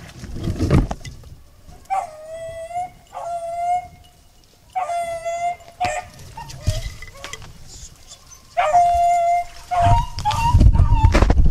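Beagles baying while running a rabbit's track: about five long, drawn-out howls in a row, the last one higher-pitched. A low rumbling noise comes near the start and again near the end.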